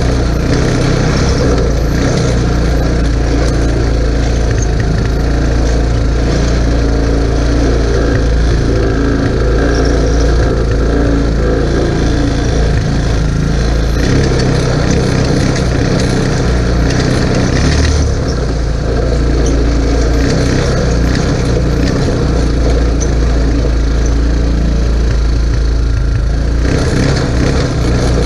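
Chinese 150 cc ATV's single-cylinder engine running loudly and steadily as the quad is ridden, easing briefly about two-thirds of the way through.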